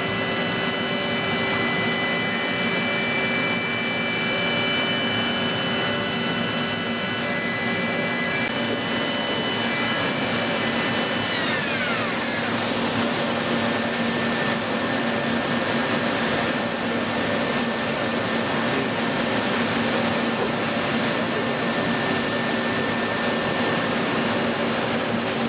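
Mori Seiki mill-turn CNC machining center running: a high whine of several tones holds steady, then winds down in pitch and stops about 11 seconds in, as a spindle slows. A steady rushing hiss runs under it throughout.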